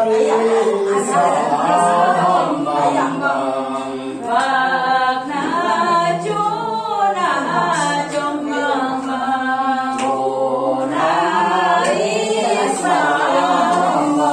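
A small group of men and women singing together without instruments.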